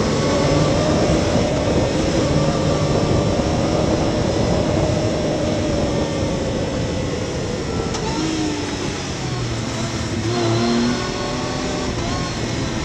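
Yamaha YXZ1000R side-by-side's three-cylinder engine running hard at trail speed, with a steady rush of wind and tyre noise. Its pitch sinks in the second half as the machine slows, shifting again near the end.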